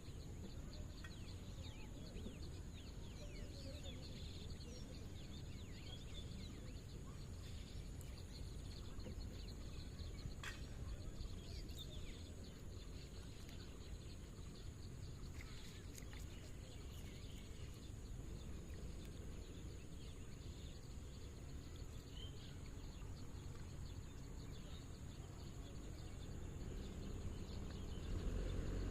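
Outdoor ambience: a steady low rumble with faint scattered bird chirps, a thin steady high tone, and a few light clicks.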